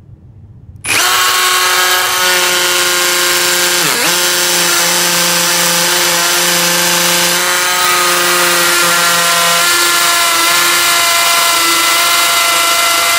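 Ryobi 18 V brushless cordless hammer drill starting up about a second in and running steadily in hammer mode, drilling into concrete; its pitch dips briefly about four seconds in.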